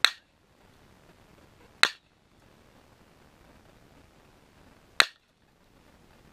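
Three sharp .22 LR shots from a Ruger 10/22 semi-automatic rifle: one at the very start, one just under two seconds in and one about five seconds in, each a single short crack.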